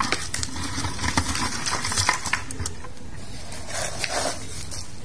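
Dry sappanwood chips rustling and clattering as a hand scoops them from a plastic basin and drops them into a plastic jar: a run of small crisp clicks and rattles.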